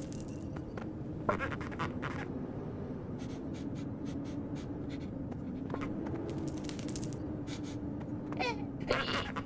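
Home-recorded foley effects: clusters of scratchy clicks and taps, and near the end a short squeaky rising sound, over a steady low hum.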